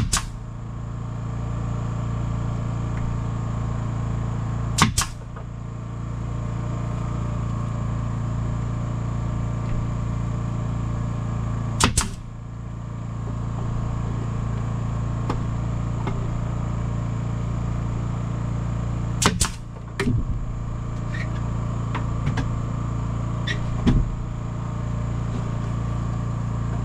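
Nail gun firing into wood, driving nails through a glued cedar drawer front into the drawer box: about six sharp shots several seconds apart, two of them close together about two-thirds of the way through. A steady machine hum runs underneath.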